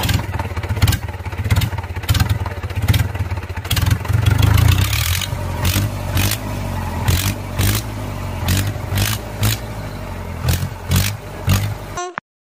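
Tractor engine running with a low rumble whose revs rise and fall, with many sharp clicks and some clatter over it; it cuts off abruptly just before the end.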